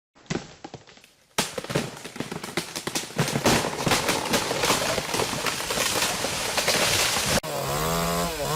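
Wood splintering and branches snapping in a dense run of sharp cracks lasting about six seconds. About seven seconds in it cuts off and a chainsaw engine takes over, running at a steady pitch that dips briefly near the end.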